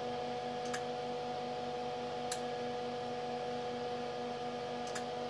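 Mastercraft MIG welder's transformer humming steadily while switched on with no load, with three faint ticks spread through the hum.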